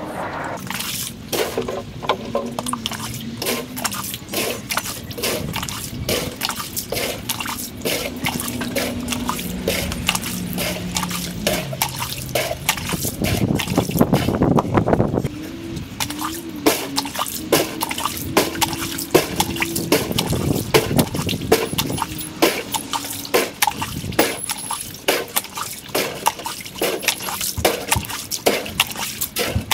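Water draining from an above-ground pool through a hose, heard as a fast, dense patter of drips and gurgles, played back at four times speed. A few short pitched tones come and go among the drips.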